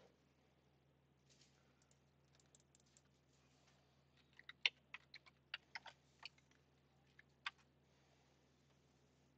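Faint typing on a computer keyboard: a short, uneven run of key clicks starting about four seconds in, over a low steady hum.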